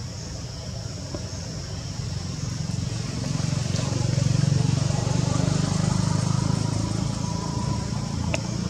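Low engine rumble of a motor vehicle going by, swelling about three seconds in and easing off near the end, over a steady high-pitched hiss.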